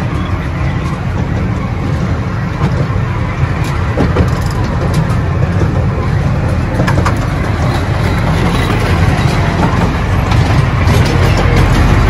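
The Currumbin Express tourist train running along its track, heard from on board as a steady low rumble with scattered clicks and rattles.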